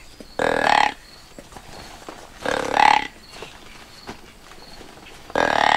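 Deer grunt call blown three times, each a short grunt about half a second long, a couple of seconds apart, imitating a buck's grunt to draw a buck in.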